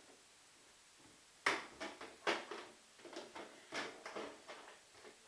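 A quick, irregular run of about a dozen light clicks and knocks, like something being handled, starting about a second and a half in and ending shortly before the end.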